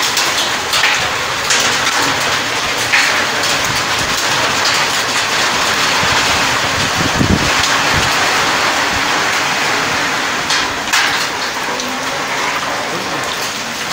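Hailstorm: heavy rain and hail pelting wet ground and puddles. A loud, dense steady hiss is crossed by frequent sharp ticks of hailstones striking, with a brief low rumble about seven seconds in.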